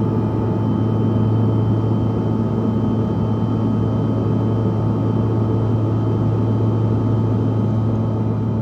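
Cabin noise of a Bombardier CRJ-200 regional jet in flight: a loud, even hum from its rear-mounted CF34 turbofans and the airflow. It has a strong low drone and a few faint, steady whining tones.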